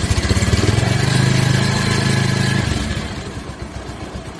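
Motorcycle engine running as the bike pulls away, loudest about one to two and a half seconds in, then fading as it rides off.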